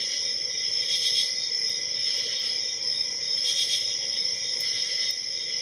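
A few faint, scattered clicks of a hook pick and tension wrench working the pins of a padlock, over a steady high-pitched background chirring.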